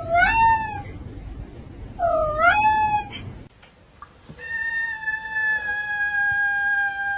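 Domestic cat vocalising: two short calls that swoop up and bend down, then after a pause one long, steady, drawn-out call held at nearly the same pitch for several seconds.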